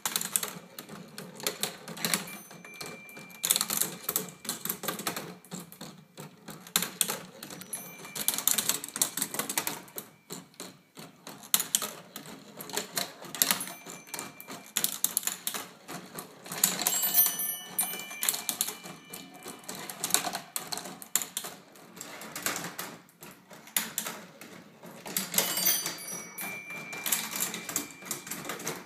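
Kinestrata, a wooden marble machine, running: metal balls roll and click through its wooden tracks and lifts in a dense, uneven clatter that swells and eases in surges. A few brief ringing tones sound now and then.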